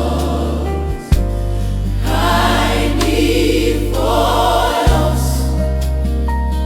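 Gospel choir singing over sustained low bass chords, with the bass changing note about a second in and again about five seconds in.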